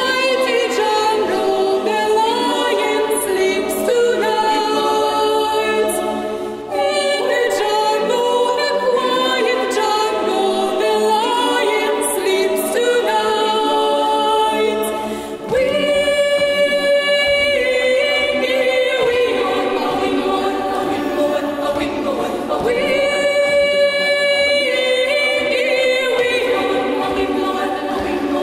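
Girls' choir singing a cappella in several parts, holding sustained notes. There are brief breaks between phrases about seven and fifteen seconds in.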